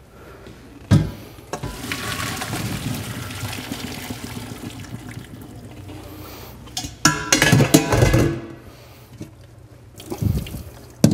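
Boiled diced potatoes and their hot cooking water poured from a stockpot into a strainer in the sink: a steady rush of water for about five seconds, then a few knocks and clatters.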